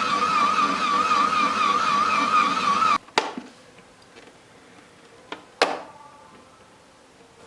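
A small electric motor whining steadily with a wavering pitch, switched off abruptly about three seconds in, followed by a few sharp knocks.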